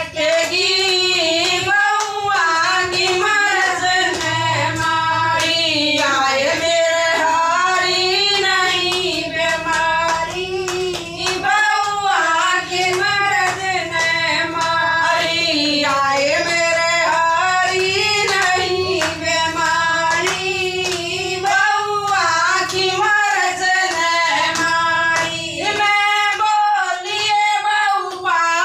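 Women singing a bhajan, a Hindu devotional song, with a lead voice carrying the melody over steady rhythmic hand-clapping.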